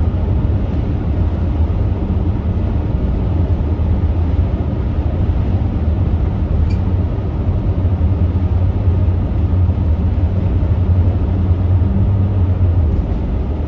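Steady low rumble of a minivan driving at highway speed: road and engine noise heard from inside the vehicle.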